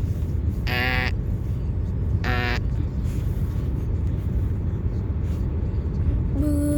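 Electronic warning alert tones: two short buzzy beeps about a second and a half apart, then a steady tone starting near the end, over a constant low rumble.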